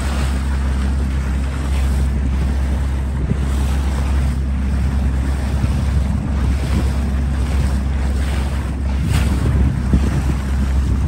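A small boat under way on open water. A steady low hum sits under water rushing past the hull and wind blowing on the microphone.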